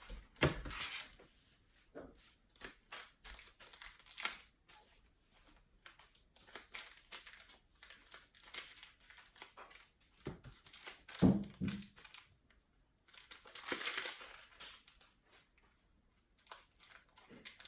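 Foil trading-card pack wrappers and the cardboard blaster box crinkling and rustling as they are handled, with irregular clicks, a longer crinkle about 14 seconds in and a dull thump about 11 seconds in.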